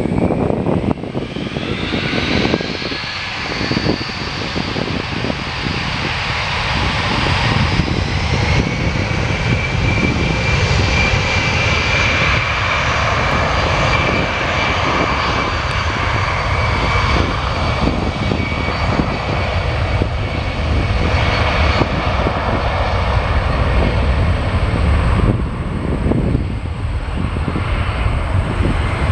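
Boeing C-17 Globemaster III's four turbofan jet engines running loud, a deep rumble under a high whine. The whine rises in pitch over the first few seconds as the engines spool up, then holds steady.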